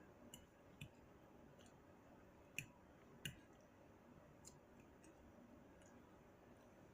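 Quiet eating: faint, scattered small clicks against near silence, the two loudest about two and a half and three and a quarter seconds in.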